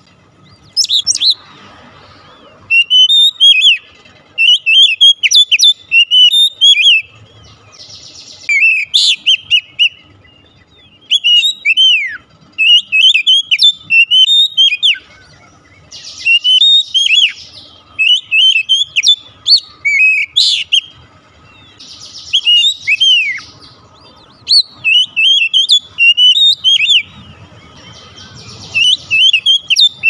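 Oriental magpie-robin singing loudly in repeated phrases of quick, sliding whistled notes, each phrase a second or two long, with short pauses between them.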